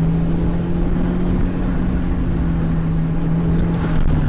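Car engine running at a steady pitch with road noise, heard from inside the car.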